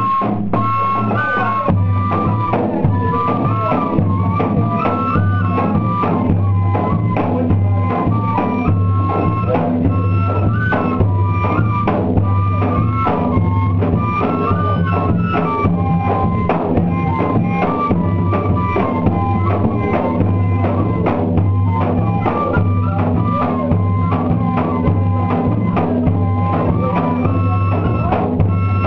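Pífano (cane fife) folk music: a fife plays a stepping, repeating melody over drums that keep a dense steady beat.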